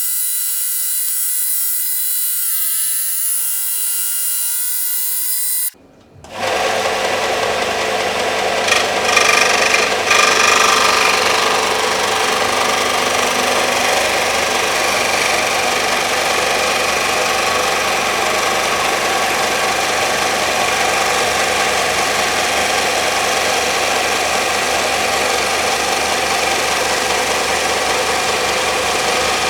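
A steady high tone-laden sound that cuts off abruptly about six seconds in, then a belt sander starts and runs steadily, grinding louder for a couple of seconds soon after starting, as if the work is pressed against the belt.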